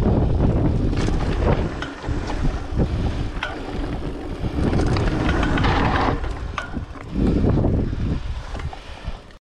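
Mountain bike ridden fast over a dirt trail: wind buffeting the camera microphone in a heavy rumble, with the tyres and the bike's chain and parts rattling and clicking over the bumps. It cuts off suddenly near the end.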